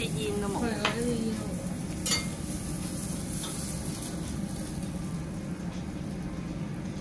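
Wagyu beef sizzling on a tabletop yakiniku grill, over the steady whir of the grill's downdraft smoke-extraction fan. A short clink comes about two seconds in.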